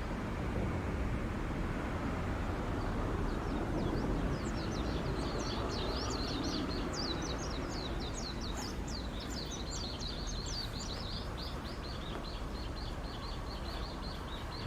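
Small birds chirping: quick runs of high, falling chirps that start a few seconds in and turn into a fast, even trill near the end, over a steady low background rumble.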